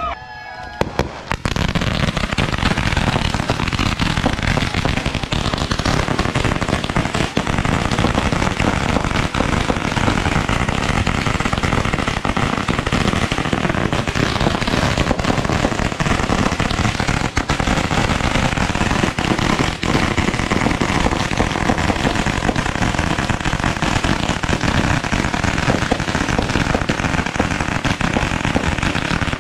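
Many fireworks and firecrackers going off at once in a continuous barrage of crackling, popping and banging that starts about a second in and doesn't let up.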